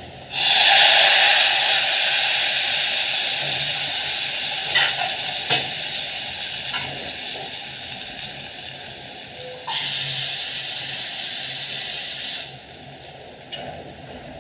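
Hot oil tempering (baghar) of onion, cumin, curry leaves and dried red chilli poured from a frying pan onto kadhi, sizzling loudly the moment it hits and fading slowly, with a few short knocks of pan and spatula. A second burst of sizzling comes about ten seconds in and stops suddenly a couple of seconds later.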